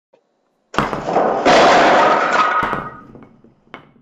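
Sound effect of ten small balls dropping all at once and clattering down through a toy board of barriers. It starts suddenly, builds into a dense rattle for about two seconds and dies away, with one sharp click near the end as the last ball lands.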